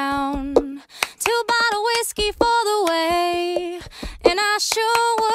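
Music: a woman singing a melody with held notes over a drum beat, the backing track for a dog dancing routine.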